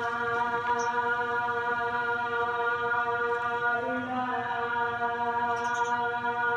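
Background music: a sustained, choir-like drone holding one chord, with a small shift in pitch about four seconds in.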